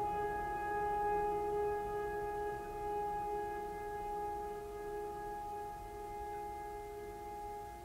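Background music: one steady held note with overtones, slowly fading.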